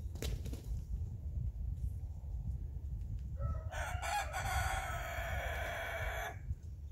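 A rooster crowing once, a single long crow of about three seconds starting about three and a half seconds in, over steady low background noise.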